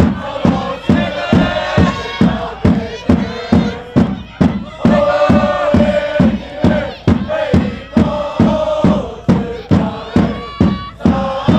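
Football supporters chanting in unison to a steady drum beat, about two to three beats a second.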